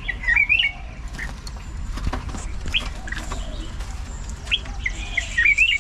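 Caged songbird singing short warbled phrases: one burst right at the start and another near the end, with a few single sharp notes in between.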